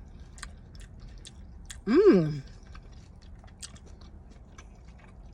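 A person chewing a mouthful of curry close to the microphone, with many small wet mouth clicks. About two seconds in there is one short hummed 'mmm' whose pitch rises and falls.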